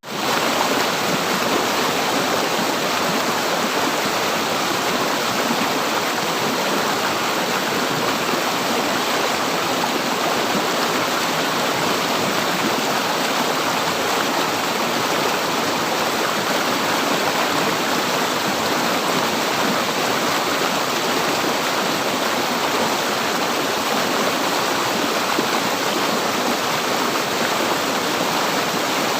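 A river flowing: a steady, even rush of running water that drops out for an instant at the very start and then runs on unchanged.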